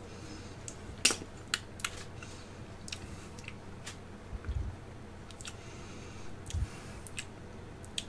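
Scattered light clicks and taps, about a dozen at uneven intervals, with two or three soft low thumps: a small e-liquid dropper bottle and vaping gear being handled.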